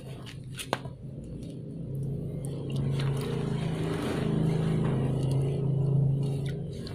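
An engine hum that swells about two seconds in, holds steady, and fades near the end.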